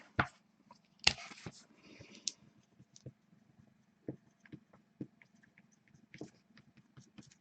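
Scattered soft clicks, taps and a brief rustle as trading cards and their plastic holders are handled, over a faint low hum.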